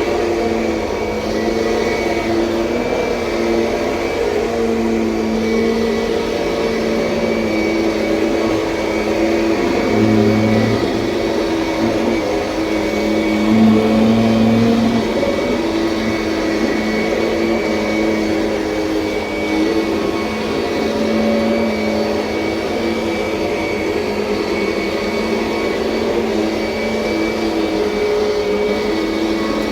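Kirby Sentria upright vacuum cleaner running steadily, its motor humming with small shifts in pitch and loudness as it is worked across the floor. It is slightly louder twice, about ten and fourteen seconds in.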